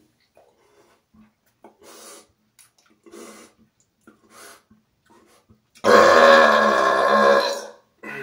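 A man's deliberate burp, loud and low-pitched, lasting about two seconds and coming about six seconds in after a few faint short sounds. A second, shorter burp starts right at the end.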